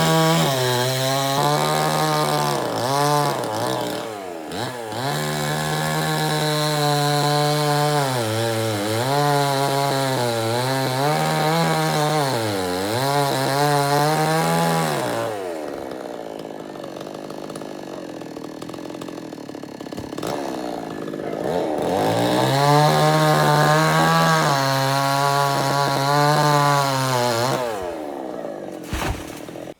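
Two-stroke chainsaw running at full throttle, its pitch sagging and recovering every second or two as the chain bites into wood. About halfway through it drops back to a quieter idle, is revved up into the cut again a few seconds later, and drops off again near the end.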